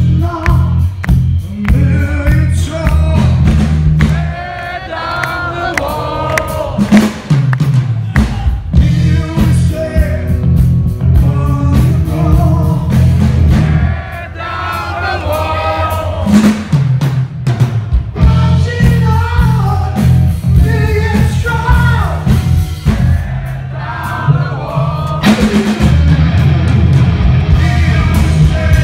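Live hard rock band playing: a male lead singer over electric guitar, bass guitar and drums, loud throughout. The heavy bass and drums drop back briefly three times, then come back in.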